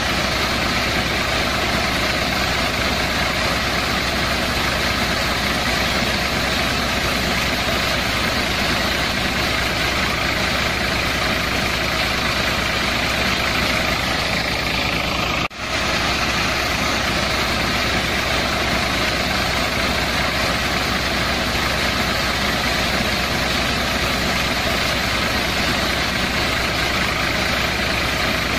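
Small electric motors of a homemade miniature wheat thresher running steadily while it threshes wheat ears, with one very brief break about halfway through.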